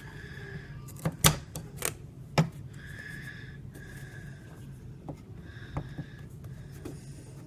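Sharp clicks and knocks of small steel pieces and hand tools being handled on a workbench while a mount plate is measured and marked out, a few of them loud, between short stretches of a high squeak, over a steady low hum.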